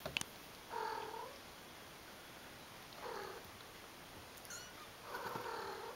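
Kitten mewing: three short meows about two seconds apart, the last one the longest. A sharp click sounds right at the start.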